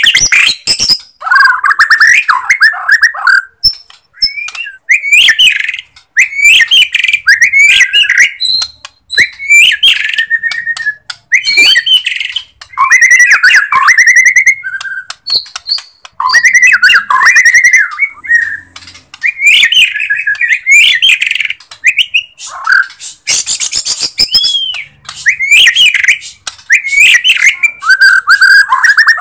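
Bornean white-rumped shama singing loudly: a continuous run of varied whistled phrases, one every second or two, mixed with sharp high chips and rattling notes.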